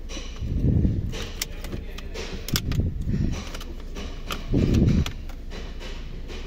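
Hands working on plastic dashboard trim and wiring connectors: scattered sharp clicks and knocks, with several dull low thumps, the loudest about three quarters of the way through.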